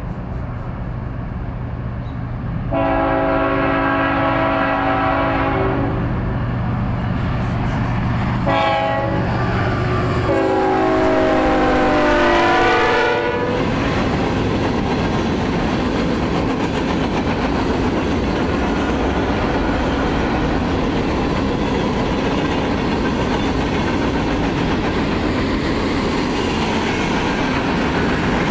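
CSX freight train led by a new Tier 4 GE ET44AH diesel locomotive: the engine's low hum, then the horn chord sounded as a long blast, a short one, and a long one whose pitch drops as the locomotive passes. After that comes the steady rumble and clatter of empty freight cars rolling by.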